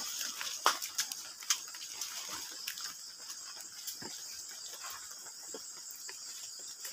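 Crickets trilling steadily in a night-time insect chorus, with short rustles and snaps of grass and brush being pushed through, most of them in the first second and a half.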